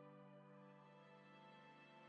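Quiet background music made of long held, soft notes.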